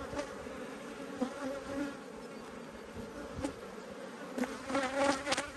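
Honeybees buzzing in the air around an opened hive: a steady hum, with single bees passing close and their buzz rising and falling in pitch, and a couple of faint clicks. The colony has taken to the air on being opened, which the beekeeper takes for bees that are a bit grumpy.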